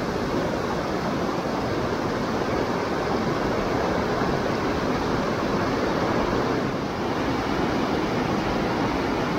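Mountain stream water rushing steadily, a constant even noise with no breaks.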